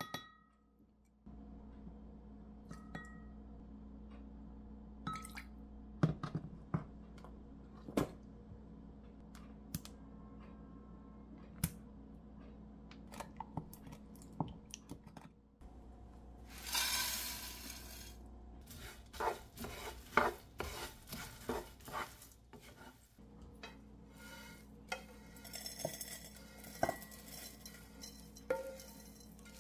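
Spoon clinking and scraping in a glass measuring cup as seasoning sauce is measured and stirred, with scattered light knocks and a brief hissing rush a little past halfway. Near the end a wooden spatula scrapes dried shrimp across a pan. A steady low hum runs underneath.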